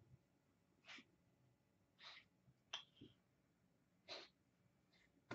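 A long-haired cat giving four faint, short, breathy coughs or huffs spread over about three seconds, which the owner takes for a possible hairball.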